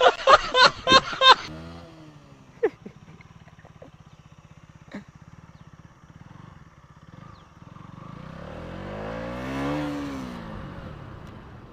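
Motorcycle engine blipped a few times in quick succession, then running at a steady low note. Near the end, another engine rises and falls in pitch as a vehicle passes.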